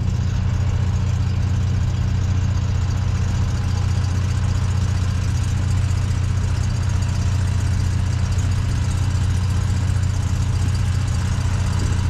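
Norwood LumberMax HD38 portable bandsaw mill's engine idling, a steady low hum that does not change, with no revving and no blade cutting.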